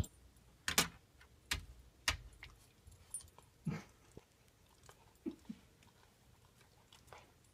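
A puppy's nose and mouth bumping and licking a mirror: about half a dozen sharp, irregular taps and smacks, with two short low sounds about five seconds in.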